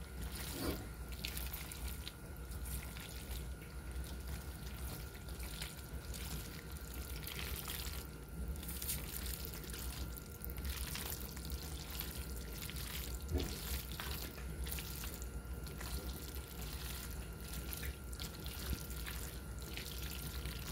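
Creamy tuna noodle casserole being stirred with a spatula in a glass baking dish: soft, wet squishing of sauce-coated noodles in irregular strokes.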